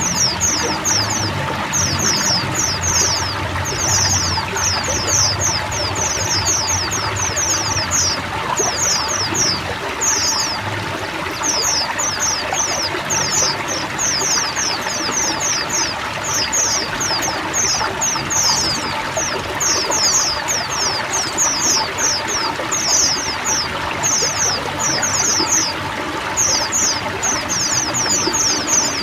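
A flock of white-eyes (pleci) singing together, dense runs of short, high, downward-sweeping notes, over steadily running water.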